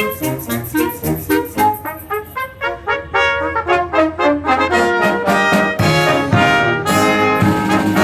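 Concert band playing, the trumpets and trombones prominent: short detached notes in a steady rhythm, swelling into fuller, louder held brass chords about five seconds in.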